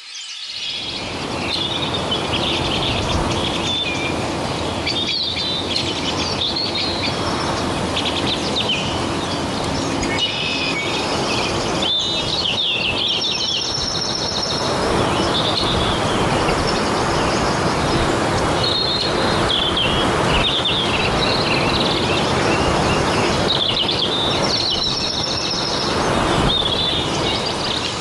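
Birds calling in open grassland: many short chirps and whistled phrases over a steady noisy background.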